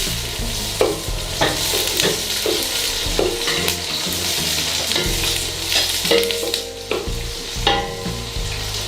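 Chopped onion and carrot sizzling as they fry in oil in a pan, stirred with a utensil that clicks and scrapes against the pan every second or so.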